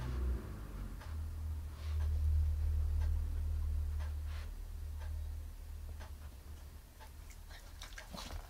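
Scattered light clicks and ticks from a Chihuahua's feet as it steps and sniffs about on a fleece blanket, more of them near the end. Beneath them runs a low rumble that swells about two seconds in and then fades.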